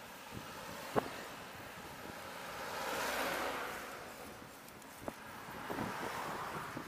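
Wind rushing over the microphone of a camera on a moving vehicle, with two vehicles swelling past and fading: the louder one about three seconds in, and a car near the end. A single sharp click comes about a second in.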